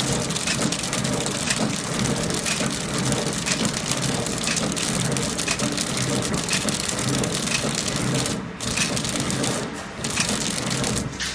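Horizontal flow-wrap packing machine running, feeding and sealing BOPP film: a loud, dense crackle full of rapid clicks, dipping briefly twice near the end.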